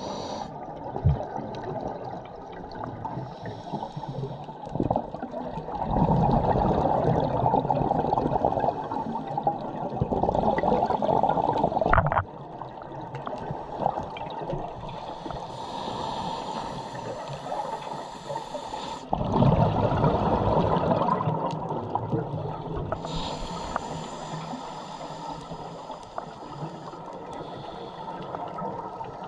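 Scuba diver breathing underwater through a regulator: long bubbling exhales alternate with thinner hissing inhales, about two full breaths.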